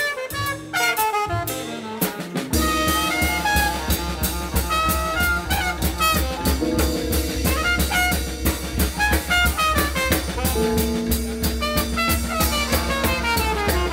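Background music, instrumental. It starts light, and a full bass and steady beat come in about two and a half seconds in.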